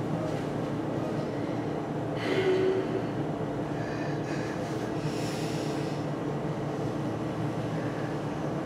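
A man crying: sniffling, gasping breaths at a few moments, over a steady low hum.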